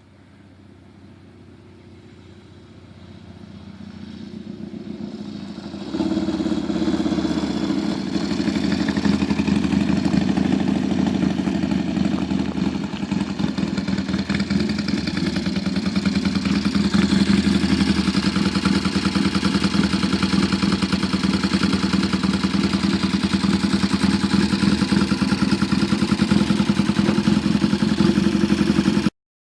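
1973 Triumph T100R Daytona's 500 cc parallel-twin engine running. It grows louder over the first few seconds with a sudden step up about six seconds in, runs steadily, then cuts off abruptly just before the end.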